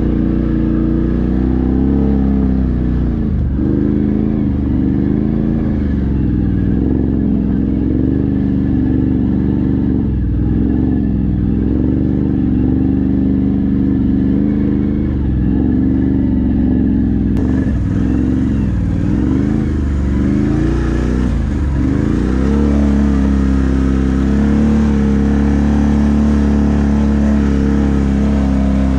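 Can-Am ATV engine running under way, its pitch dipping and climbing back again and again as the throttle is eased and opened, then holding steadier and a little higher near the end.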